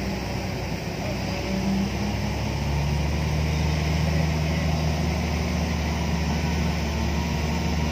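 Diesel engine of a heavy truck pulling a loaded multi-axle transport trailer, running steadily under load. It grows louder about two and a half seconds in.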